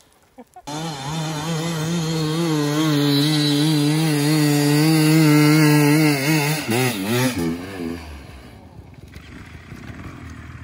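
Dirt bike engine revving hard and steadily on a steep hill climb. About two-thirds of the way in the revs waver, then the engine sound drops away.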